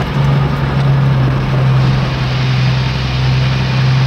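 Truck engine running at a steady pitch, a constant low drone with rough noise over it.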